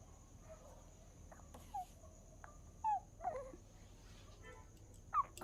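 A dog whimpering: a few short, high whines, each falling in pitch, spaced out over several seconds.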